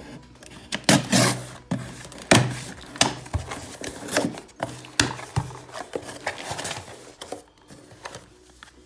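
A knife slitting packing tape on a cardboard shipping box and the flaps being pulled open: an irregular run of sharp cardboard scrapes, knocks and rustles, loudest about a second in and again about two and a half seconds in, dying down near the end.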